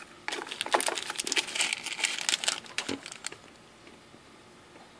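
Small clear plastic bag of MOSFETs crinkling and rustling as it is handled, a dense run of small crackles lasting about three seconds.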